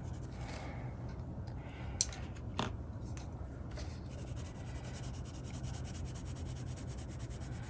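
Mondo Llama colored pencil scratching on coloring-book paper in short repeated shading strokes. Two sharp clicks come about two seconds in as one pencil is swapped for another.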